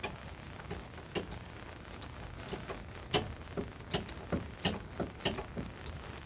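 Irregular metallic clicks, about two to three a second with some ringing sharply, from a socket ratchet being worked on a nut.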